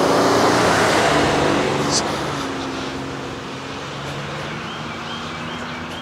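Pickup truck driving past on the road: engine and tyre noise, loudest at the start and fading away over a few seconds.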